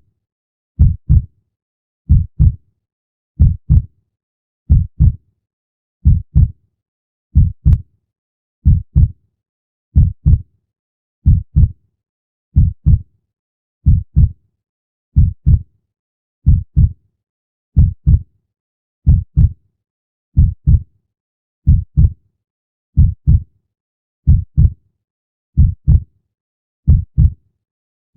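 Heartbeat sound: slow, steady lub-dub double thumps, deep and low, one beat about every 1.3 seconds (roughly 46 a minute), with silence between beats.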